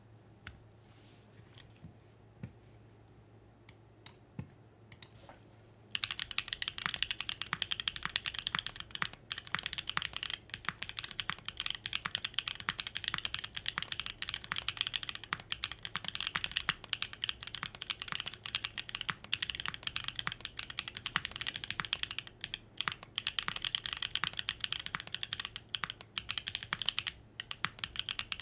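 Mechanical keyboard typing test on a Krush65 with an aluminium plate in O-ring mount, stock prototype Cheesecake switches (POK housings, LY stem, dual-stage 60 g springs) and GMK Norse ABS double-shot keycaps. A few single key clicks over the first several seconds, then about six seconds in, fast continuous typing with a bright, crisp clack.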